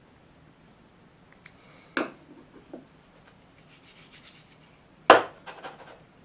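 Wooden pieces knocking and rubbing together as they are handled, with two sharp knocks, the louder one about five seconds in, each followed by lighter clatter.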